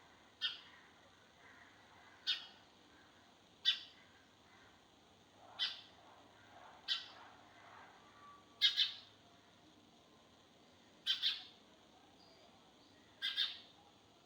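Sparrow chirping: about eight short, sharp chirps spaced one to two seconds apart, the last few coming as quick double chirps.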